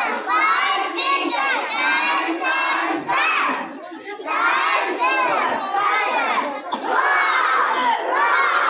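A group of young children's voices shouting together, in loud stretches with brief breaks.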